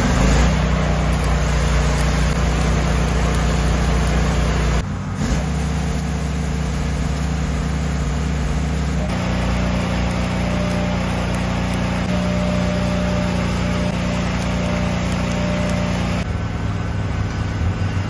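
Stick welding with 3/32 7018 rod: the arc's steady crackle and sizzle over the drone of an engine-drive welder running under load. The sound shifts abruptly about 5, 9 and 16 seconds in.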